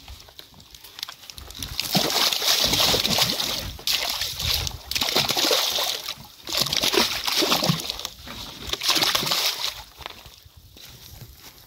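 Live carp being tipped from a crate into the lake from the bank: water and fish splashing in four bursts of a second or two each, the first and longest starting about two seconds in.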